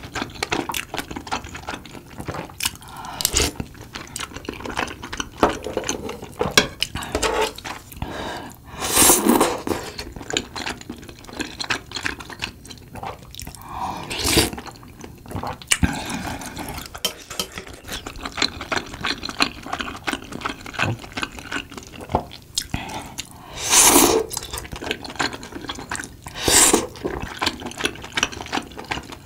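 Close-miked eating sounds: wet chewing of soft rice cakes and fried snacks, with small clicks throughout and about four louder slurps of spicy tteokbokki broth from a ladle.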